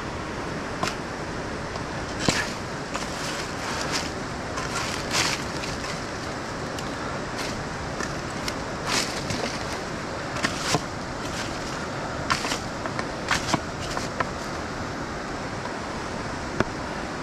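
Steady rush of whitewater from the Youghiogheny River's Dartmouth Rapids, with irregular sharp crunches and clicks of footsteps on the rocky shore scattered through it.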